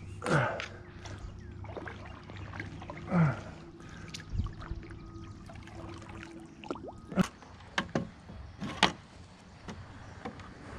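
Kayak paddle strokes swishing through the water, with a few sharp knocks near the end.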